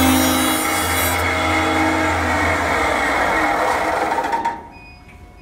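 CNC wood lathe turning and cutting a wooden workpiece: a steady rasping cutting noise over a low motor hum, which cuts off sharply about four and a half seconds in.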